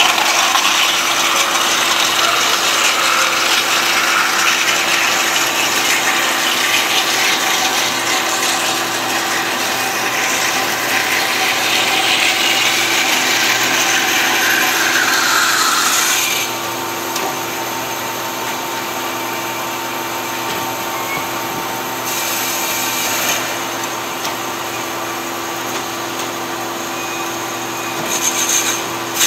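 DoALL DC-800NC horizontal band saw running its blade through solid steel: a steady cutting and motor noise with a constant hum under it. About halfway through it becomes a little quieter and duller.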